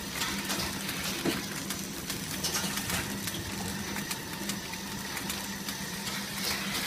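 Automatic cup packing machine running: a steady mechanical whirr and hum with many light clicks from its moving parts, and a few brief louder hissing surges.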